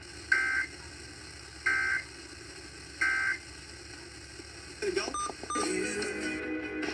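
Emergency Alert System end-of-message data bursts: three short two-tone warbles about a second and a quarter apart, marking the end of the severe thunderstorm warning. The broadcast's voices and music come back near the end.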